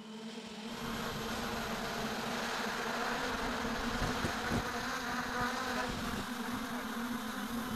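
Electric motors and propellers of a ten-engine battery-powered aircraft in flight, making a steady buzzing hum. A rushing hiss comes in about a second in and stays.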